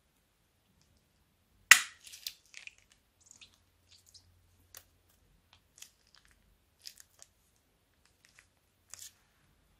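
Plastic piping bag: a sharp snip about two seconds in as its tip is cut with a blade, then scattered soft crinkles and clicks as the bag is squeezed out.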